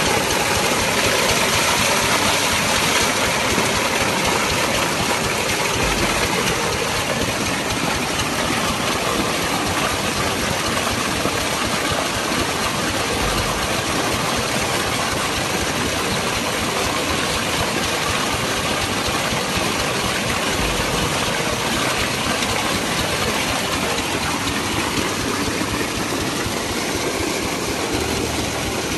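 Farm irrigation pumpset engine running steadily, with a steady rushing noise over its low, even firing.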